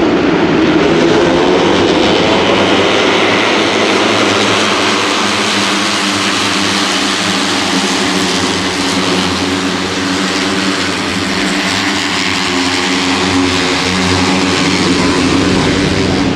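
A pack of KTM RC250RBR four-stroke single-cylinder 250cc racing motorcycles running at high revs, many engines overlapping in one continuous loud drone with small shifts in pitch.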